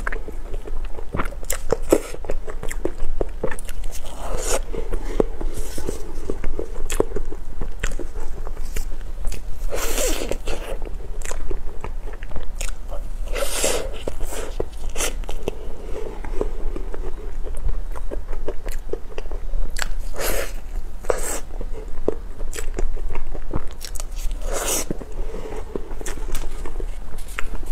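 Close-miked eating of a soft cream-filled durian pastry: bites and wet chewing, with about five louder bursts of biting and mouth sounds spaced a few seconds apart and softer chewing between them.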